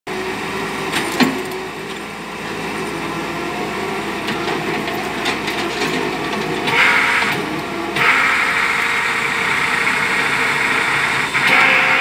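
Crawler piling rig's engine running steadily while it holds and positions a hanging precast concrete pile, with a rushing hiss coming in about seven seconds in, again from eight seconds and once more near the end, and a few sharp clicks near the start.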